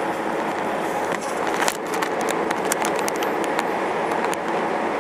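Car driving along a highway, heard from inside the cabin: steady road and engine noise, with scattered light clicks from about a second in.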